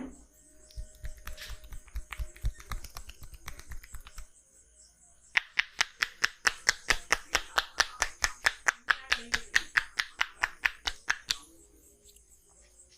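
Percussive massage strokes of hands on a person's body: first a quick run of dull, low thumps, then from about five seconds in a fast, even series of sharp slaps, roughly five or six a second, for about six seconds.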